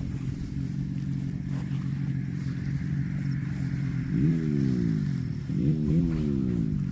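A steady low drone, then two calls about four and five and a half seconds in, each rising quickly and then sliding down in pitch: a cow mooing.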